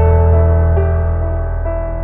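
Background music: soft piano-led ambient music with sustained notes over a steady low bass, changing notes about every second.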